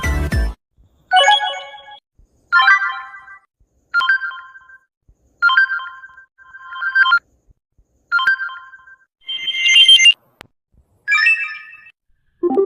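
Samsung phone notification tones played one after another: about nine short electronic chimes, each under a second long, separated by brief silences. The last one is lower in pitch.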